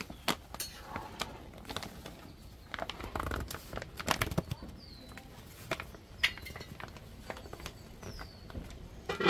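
Scattered light knocks and clicks of kitchen handling, busiest in the middle, with two faint, high, falling bird chirps.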